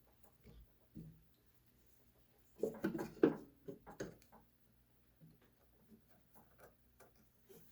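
Handling noises: light clicks and rubbing, with a short run of louder knocks and scrapes about three seconds in, as the power cord is pulled through and the sewing-machine cabinet is handled.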